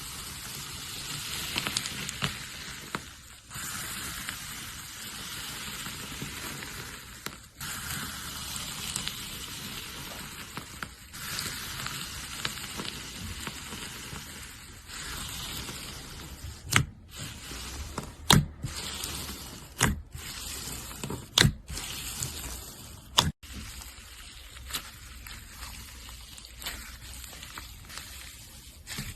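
Slime being squished and worked by hand, a steady crackling hiss, then a run of about five sharp pops in the second half.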